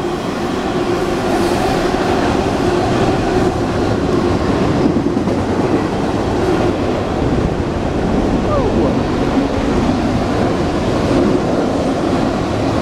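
Intermodal freight train's double-stack container cars rolling past underneath: a steady, loud noise of steel wheels running on the rails.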